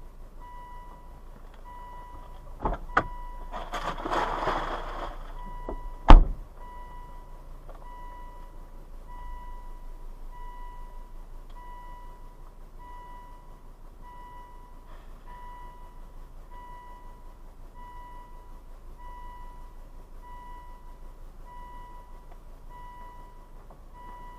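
A car's warning chime beeping steadily over and over, as when a door is left open. About three seconds in come a couple of clicks and a rustle, and about six seconds in a single loud thump.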